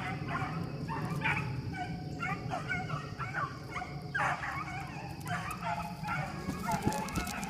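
Rabbit hounds baying and yelping in chorus on a swamp rabbit's trail, with short, overlapping high calls following one another without a break.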